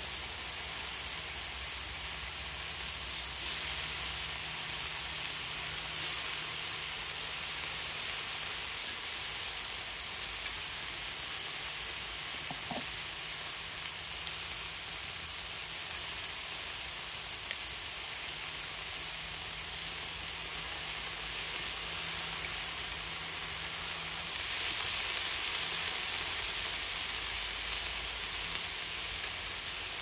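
Sliced pork belly sizzling steadily on a hot griddle pan, growing louder about three-quarters of the way through, with a couple of light clicks.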